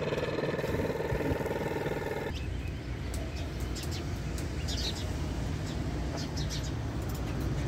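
A vehicle engine droning on the road, which cuts off suddenly about two seconds in. After that, birds chirp in short high calls over a low, steady rumble.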